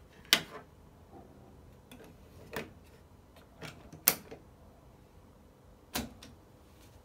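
Plastic and mechanical clicks and clacks of a compact cassette being handled and loaded into the cassette deck of a Telefunken HiFi Studio 1M music centre: the tape picked up, the deck door snapped shut and the piano-key buttons pressed. There are about half a dozen sharp clacks, the loudest just after the start, about four seconds in and about six seconds in.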